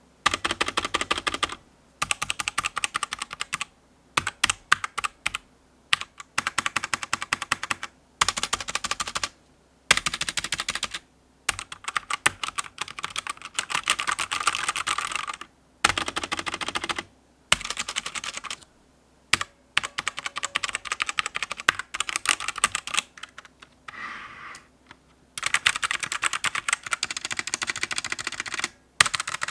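Keys of a Langtu K003 mechanical keyboard being pressed in rapid runs: dense clacking keystrokes in bursts of a second or three, broken by short pauses.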